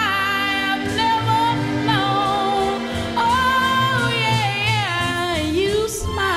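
Music: a singing voice holding long notes with vibrato and sliding between pitches, over low accompaniment.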